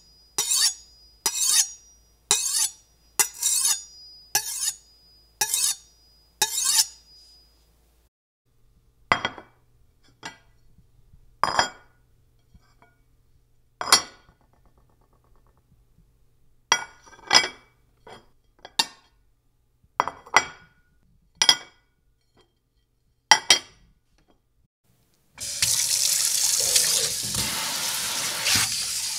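A run of sharp clinks about a second apart, some with a brief ringing note. Then irregular single knocks and clicks. About 25 s in, water starts running steadily from a tap into a sink.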